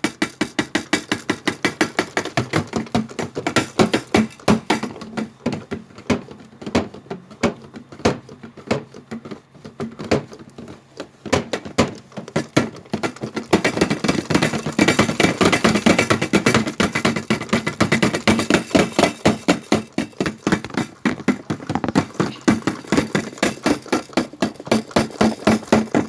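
Washing machine in its spin cycle, rocking and banging: rapid repeated knocks, about four a second, that get louder and busier about halfway through.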